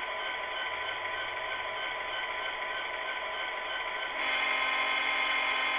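Diesel prime mover sound from a SoundTraxx Tsunami decoder idling steadily through an HO-scale SD70M model locomotive's small speaker, at the overall volume just turned down to 150. About four seconds in the sound steps up, louder and brighter.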